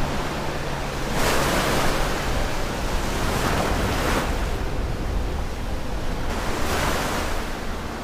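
Ocean surf: waves washing in over a steady rush, swelling three times, about a second in, midway, and near the end.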